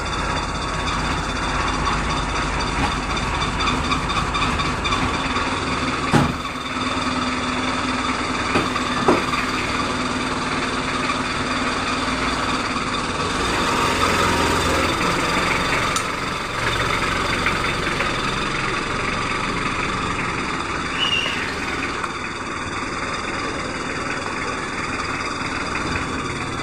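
A vehicle's engine running steadily throughout, with a few sharp clicks about six, nine and sixteen seconds in.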